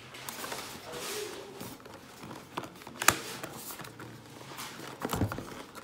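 Hands handling and turning a cardboard Echo Show 5 box: fingers brushing and rubbing on the cardboard, with a few light taps and knocks, the sharpest about three seconds in.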